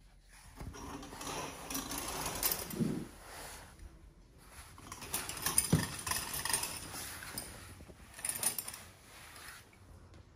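Curtains being drawn open, their runners rattling along the ceiling track in two long pulls.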